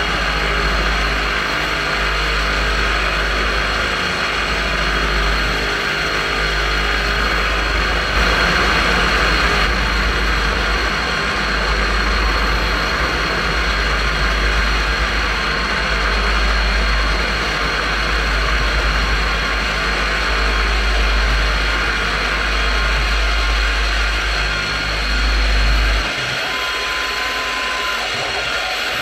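PM-727M CNC mill's spindle running as an end mill bores into an aluminium block, with coolant spraying onto the cut. About 26 s in the low hum drops out and the sound steps down.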